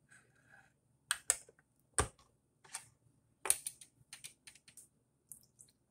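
Handheld can opener clicking as it is worked around a can of evaporated milk: scattered sharp clicks and knocks, then a quicker run of about three clicks a second.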